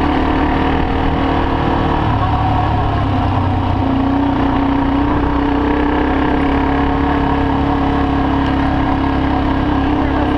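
Yamaha TT-R250 dirt bike's single-cylinder four-stroke engine running steadily under way. Its pitch drops slightly about two seconds in and then holds.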